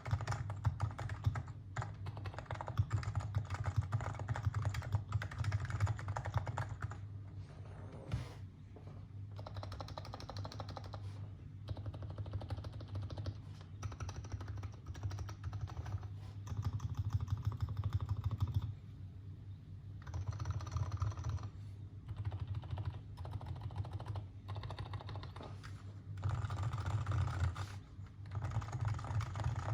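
Continuous typing on a Topre Realforce R2 PFU 45 g keyboard in a Norbaforce Mk II case, its sliders lubed with Krytox 205g0 and fitted with Deskeys light blue domes: a dense stream of keystrokes with a deep low thud under the clicks, broken by a few short pauses.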